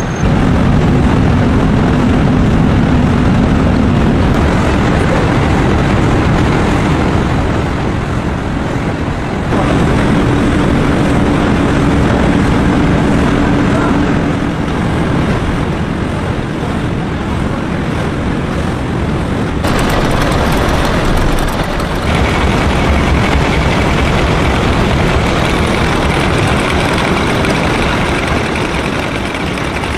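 Matchstick-splint factory machinery running: loud, steady machine noise with a low hum in parts, its character changing abruptly several times.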